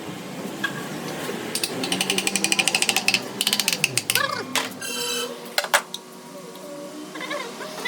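Ratchet wrench clicking rapidly, about ten clicks a second, for under two seconds, followed by a few more clicks and some short high squeaks.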